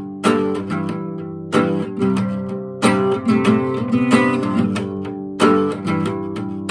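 Acoustic guitar with a capo, strummed by hand: chords struck every second or so, each ringing on and fading before the next.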